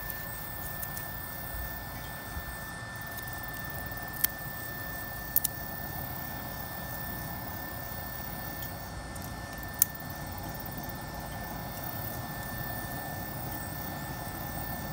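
The BioLite CampStove's small battery-driven fan running with a steady high whine over the rush of air through the wood fire. A few sharp clicks stand out about four, five and ten seconds in.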